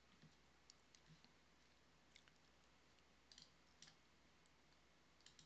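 Near silence: room tone with a handful of faint, scattered clicks.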